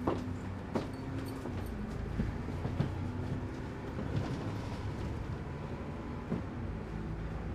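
Interior of a double-decker bus on the move: a steady low engine hum and road rumble, with a few knocks and rattles in the first few seconds.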